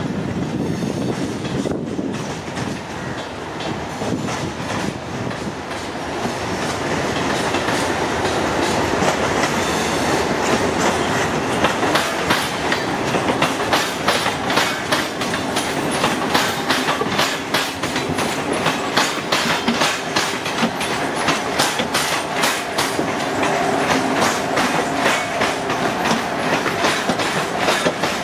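WCAM-2P dual-current electric locomotive running light, its wheels clattering over rail joints and points as it approaches and passes close by. The clicks grow louder and come thicker from about a third of the way in, with a steady hum under them.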